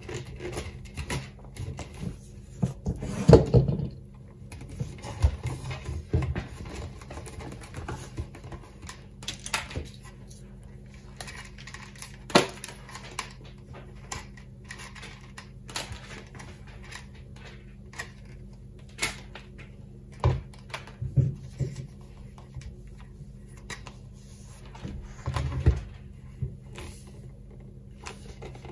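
Insulated antenna wire being wound by hand onto a plastic pipe: irregular clicks, rubs and knocks of the wire and pipe being handled on a wooden worktop, the loudest knock about three seconds in. A steady low hum sits underneath.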